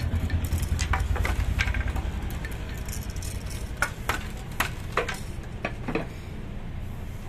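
Light wooden clicks and taps from a traditional bamboo-and-wood handloom as pattern sticks are worked through the warp threads, about ten scattered clicks. Under them a low engine rumble that eases after about two seconds.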